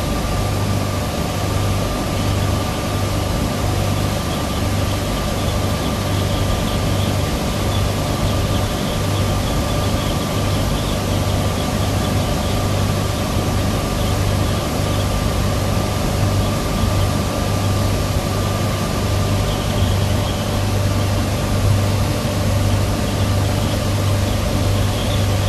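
Twin Tohatsu 250 four-stroke V6 outboards running steadily at cruise, around 4400 rpm, with a low pulsing drone and a thin steady whine over a constant rush of wind and water.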